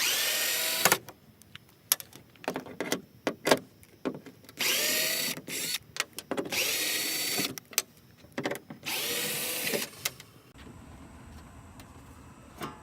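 Power drill driving a socket to back out the tailgate latch bolts, in four spins of about a second each. Each spin rises quickly to a steady whine, with short metallic clicks between them.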